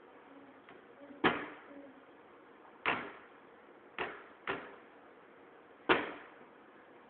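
Wooden kitchen cabinet door banging shut five times as a baby's hand pushes it, each a sharp knock with a short ringing tail; two of the bangs come close together about four seconds in.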